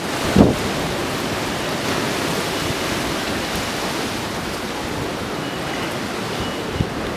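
Steady, even rush of storm surf at a hurricane high tide, with a short low thump of wind hitting the microphone about half a second in.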